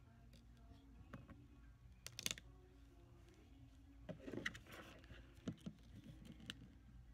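Quiet tabletop handling: a few light taps and knocks as small craft pieces and a hot glue gun are moved about on a wooden table, over a faint low hum.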